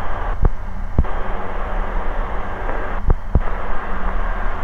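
Ikarus C42 microlight's engine and propeller droning steadily in cruise flight, with wind and airframe noise, broken by four short clicks.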